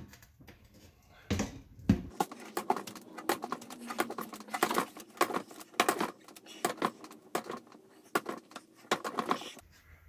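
Hands working a new motorcycle tire's bead over the rim of a Yamaha V-Star 950 rear wheel: irregular knocks and rubbing of rubber against the wheel, starting about a second in.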